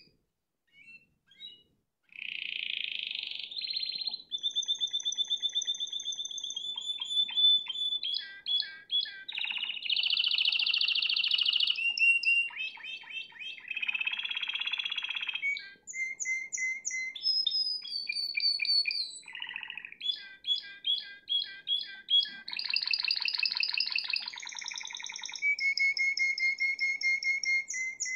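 Spanish timbrado canary singing: a few short chirps, then about two seconds in a long, near-continuous song of fast trills and rolls that change speed and pitch from phrase to phrase.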